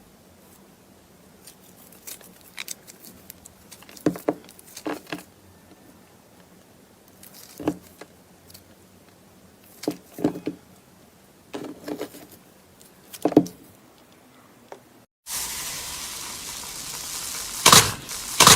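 Slime being squeezed and poked with the fingers, giving scattered short pops and crackles at irregular intervals. About 15 s in it cuts to a louder, steady hissy stretch with two or three sharp crunches near the end.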